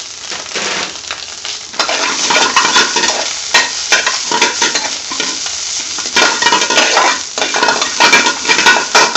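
Pre-cooked spinach and onions frying in hot oil in a metal frying pan, sizzling while a large metal spoon stirs and tosses them, with scraping and clinks of the spoon against the pan. The sizzle grows louder from about two seconds in and comes and goes in loud spells as the greens are turned over.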